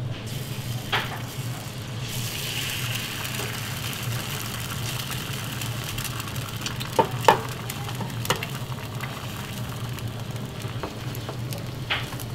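Egg frying on a flat-top griddle: a steady sizzle that swells about two seconds in, with a few sharp pops of spattering fat.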